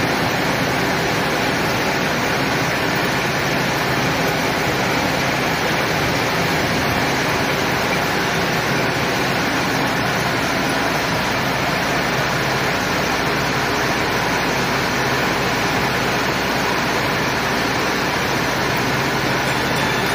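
Metal lathe running steadily while boring the inside of a large steel workpiece: constant machine and cutting noise with no breaks.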